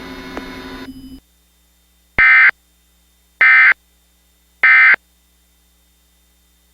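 Emergency Alert System SAME data tones sent three times as short bursts of warbling, modem-like tones a little over a second apart: the end-of-message code that closes the alert.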